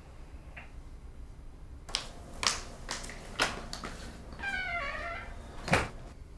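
A few sharp taps about half a second apart, then a brief squeak falling in pitch, then one heavier knock, the loudest sound.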